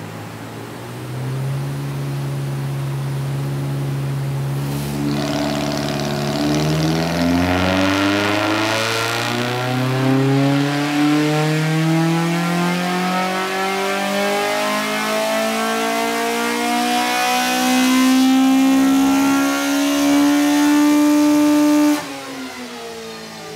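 Toyota Echo's Prius-sourced 1NZ 1.5-litre four-cylinder engine making a full-throttle pull on a rolling-road dyno. The engine note climbs steadily in pitch for about twenty seconds toward about 9000 rpm. Near the end it cuts back suddenly and the revs fall away.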